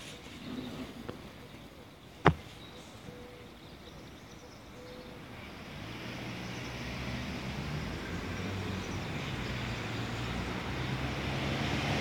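A single sharp click about two seconds in, then a low engine rumble that grows steadily louder from about halfway through, like a vehicle approaching.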